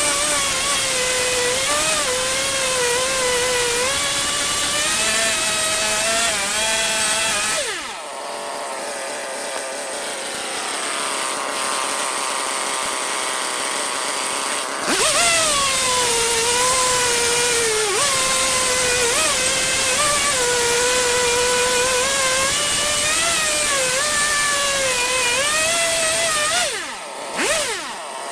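Two-stroke chainsaw on a homemade chainsaw mill running at full throttle through a cedar log, its pitch wavering under load. About eight seconds in it drops back to a lower, rougher sound for several seconds, then comes back up to full cutting speed and eases off again near the end.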